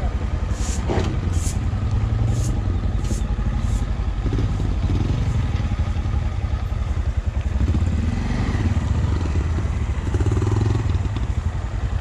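Zongshen RX1 motorcycle engine running at low speed as the bike rolls slowly over rough gravel, a steady low rumble. Several sharp clicks or rattles come in the first few seconds.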